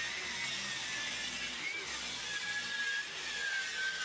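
Festool plunge-cut track saw running along its guide rail, ripping sapele into strips: a steady motor whine under load that wavers slightly in pitch.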